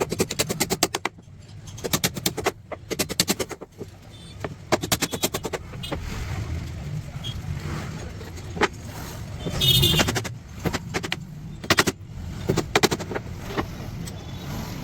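Power tool fastening a drawer into a wooden cash counter: short runs of rapid sharp clicks, about ten a second, several times over, with a short motor whine about ten seconds in.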